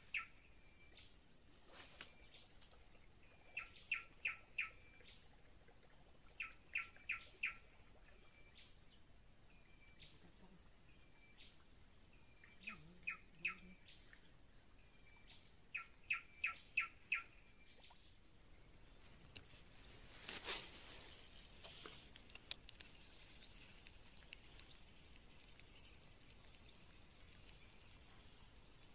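A bird calling in short bursts of four or five quick repeated notes every few seconds, faint, over a steady high insect whine. A short scratchy noise breaks in about two-thirds of the way through.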